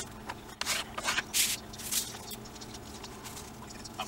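A sheet of paper being folded and creased flat by hand: several short papery rustles and swipes in the first two seconds, then quieter handling.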